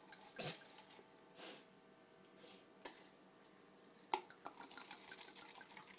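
Red wine poured from a glass bottle into plastic cups: faint trickling and splashing, with a sharp click about four seconds in followed by small ticks.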